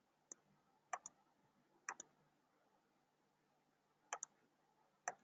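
Computer mouse clicking: a few faint, sharp clicks, several of them in quick pairs like double-clicks, with pauses of about a second or two between them.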